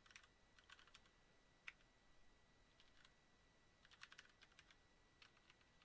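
Computer keyboard typing: faint, irregular keystrokes in small clusters with short pauses between them.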